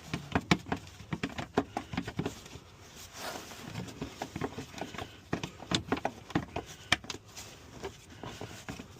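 Irregular light clicks and taps of metal parts and tools being handled while working on the shifter and its cable hardware, a few each second.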